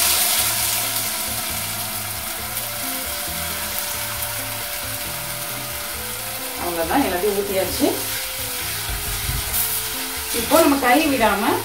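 Ragi flour and buttermilk batter poured slowly into hot tempering oil and stirred in the pan, sizzling loudly at first and easing off over the first couple of seconds to a steady sizzle. Background music plays throughout, with a voice in it briefly around the middle and again near the end.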